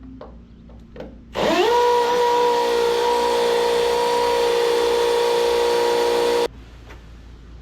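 Power drill boring a mounting hole into brick: the motor spins up with a quick rising whine about a second in, runs at a steady pitch for about five seconds, then stops abruptly. A few light clicks come before it.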